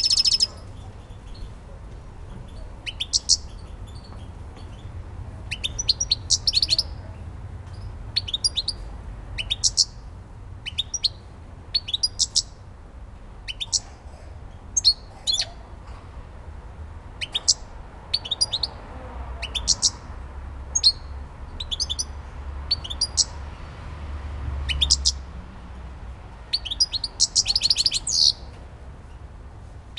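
Caged European goldfinch singing: short bursts of quick twittering notes, one every second or so, with longer, denser phrases at the start and near the end.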